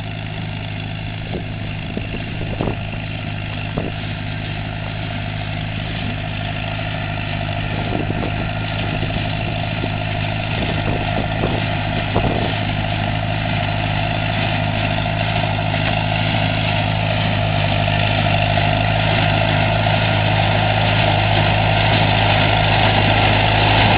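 Farm tractor pulling a working square hay baler, its engine running steadily and growing louder as it approaches, with a few faint knocks in the first half.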